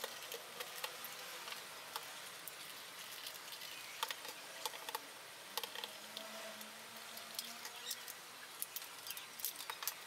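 Faint, scattered small clicks and scratches of a plastic hair dryer housing being handled and pried apart by hand.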